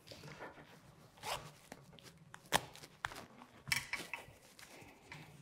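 Faint, scattered clicks and rustles of hands and tools being handled in a small workshop, with a few sharper ticks.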